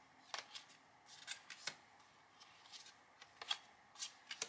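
Small cardstock journaling cards being shuffled and slid against one another in the hands: faint, crisp paper flicks and swishes, a dozen or so short ones, the sharpest near the end.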